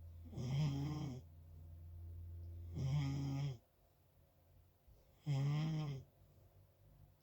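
Loud snoring: three snores about two and a half seconds apart, each lasting about a second with a buzzing, pitched rattle. A faint low hum runs under the first half and stops after the second snore.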